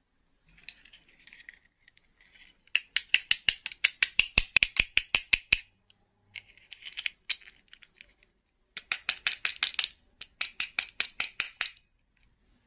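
Small plastic dolls and a hard plastic clip-on dress being handled, giving two runs of quick, sharp clicking and rattling of about six clicks a second, each run preceded by softer rustling.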